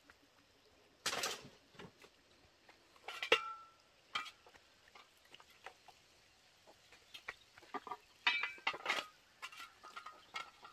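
Scattered light clinks and knocks of small hard objects, a few leaving a short ringing tone, with a busier run of them near the end.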